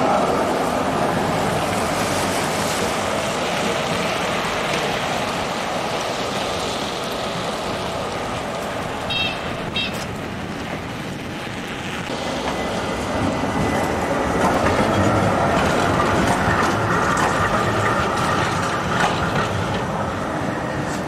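Tram running on its rails, a steady mechanical noise with a tone that comes and goes. About nine seconds in there are two short high-pitched tones in quick succession.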